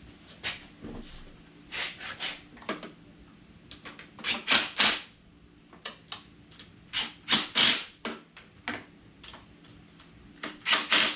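Cordless impact drill running in several short bursts, driving in the bolts that hold the dirt bike's plastics on.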